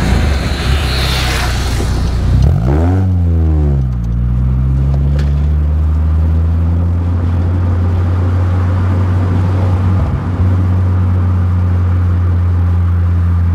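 Honda CR-Z Mugen RZ's engine heard from inside the cabin: a rushing road noise at first, then the revs rise and fall once about three seconds in, and the engine settles into a steady low drone while driving.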